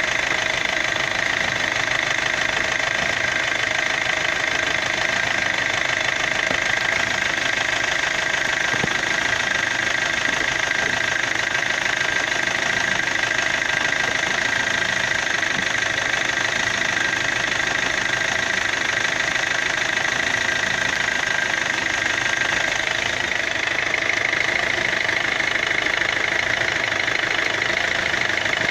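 Kia Cee'd engine idling steadily, with a constant high whine over the running noise.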